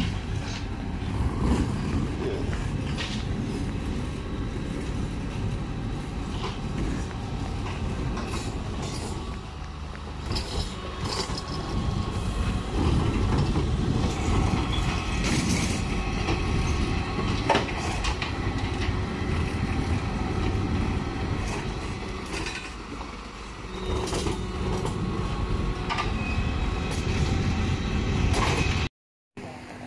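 Rear-loading garbage truck running while its lifter empties wheeled bins into the hopper: a steady mechanical drone broken by clanks and knocks of the bins at intervals.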